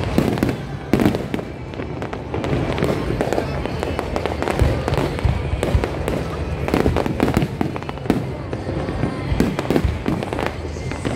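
Aerial fireworks display: repeated bangs and crackling bursts, many in quick succession, over the voices of a large crowd.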